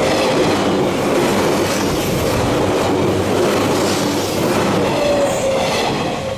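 Train running past on the rails: a loud, steady rumble of wheels on track with faint squealing tones from the wheels.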